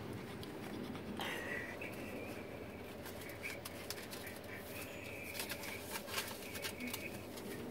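A Ryko Softgloss Maxx rollover car wash spraying water and foam over a car, heard from inside the cabin: a steady hiss of spray, with intermittent high squeals and scattered clicks from about a second in.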